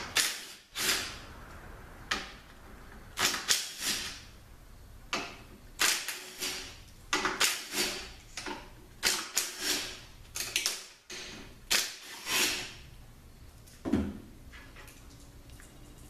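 Tools working metal on a THM400 transmission case as the reverse piston cover is taken off: a series of short, irregular rasping clicks, with a duller knock about 14 seconds in.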